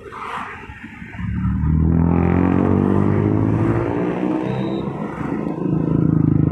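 Yamaha NMAX 155 scooter's single-cylinder engine pulling away: it opens up about a second in, rising gently in pitch, and then runs on loud and steady.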